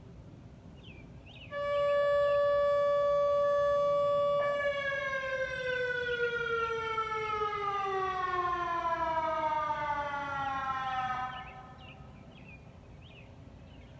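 Mini ASC Alertronic AL4000 electronic warning siren on its low-tone setting. It sounds a steady tone (about 575 Hz) for about three seconds, then winds down, its pitch falling slowly for about seven seconds before it cuts off. Faint bird chirps are heard around it.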